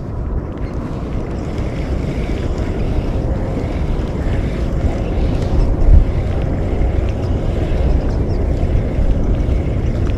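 Wind buffeting the microphone on a seashore, a steady low rumble with a stronger gust about six seconds in, over small waves lapping at the rocks.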